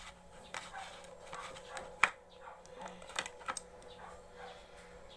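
Irregular small clicks and taps, with one sharp, louder click about two seconds in.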